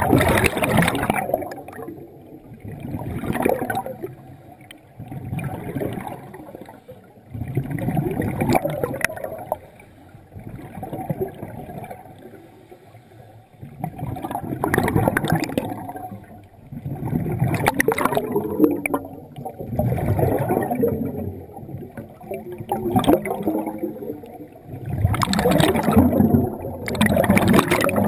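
Scuba regulator exhaling: bursts of air bubbles gurgle past the camera every two to three seconds, one burst per breath, with quieter gaps between breaths.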